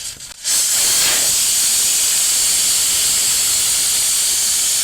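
Air rushing out of a tire through its valve stem with the valve core removed: a loud, steady hiss that starts suddenly about half a second in, as the tire deflates.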